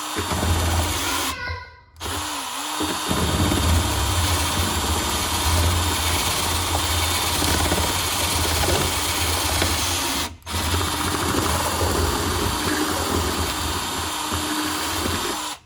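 Power drill boring through the car's sheet-metal floor to enlarge a hole. It runs in long stretches, with a short pause about two seconds in and another at about ten seconds, and stops abruptly near the end.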